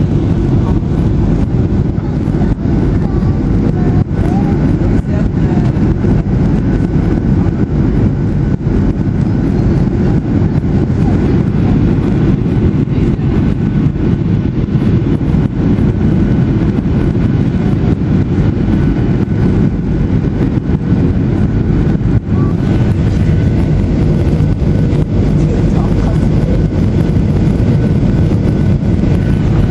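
Boeing 737-800 cabin noise on approach: a steady roar of airflow and the CFM56-7B engines, strongest low down, with a faint steady whine above it. The flaps are extended for landing.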